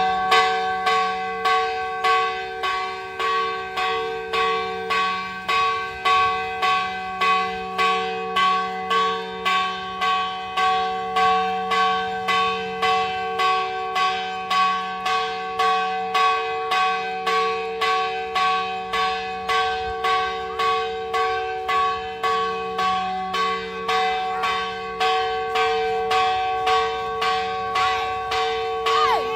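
Church bell ringing in quick, even strokes, about three every two seconds, each stroke ringing on into the next with the same unchanging set of tones.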